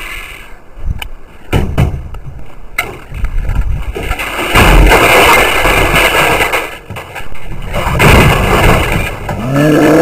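An old front-loading washing machine being knocked about and shoved over gravel: several sharp plastic and metal knocks in the first few seconds, then two long stretches of loud scraping and rumbling, about four and eight seconds in.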